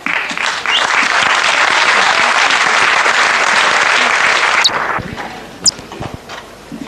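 Audience applauding, starting all at once and dying away about four and a half seconds in, followed by a few scattered knocks and clicks.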